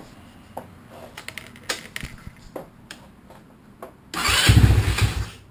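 A 150cc GY6 four-stroke single-cylinder scooter engine, after a few light clicks, fires about four seconds in, runs loudly for about a second and a half and cuts out suddenly. It will not idle on a cold start, which the owner suspects is the stock pilot jet in its carburettor.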